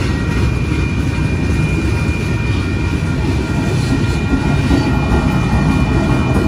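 Freight train passing close by at speed: a steady, loud rumble of steel wheels on the rails as tank cars roll past, with steady high ringing tones over it. A mid-train distributed-power diesel locomotive comes by in the second half.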